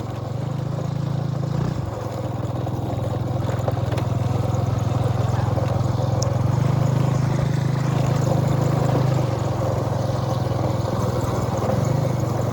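A small motorbike engine running at a steady speed, louder between about six and nine seconds in, over wind and tyre noise.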